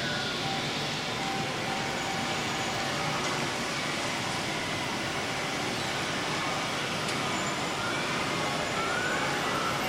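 G-scale model trains running on the layout: a steady, even rolling noise with faint background tones. A faint rising wail starts near the end.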